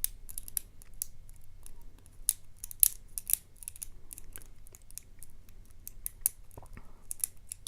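Lock pick and tension wrench clicking against the pins inside a Yale euro cylinder pin-tumbler lock: many small, irregular metallic clicks as the pick slips off the pins.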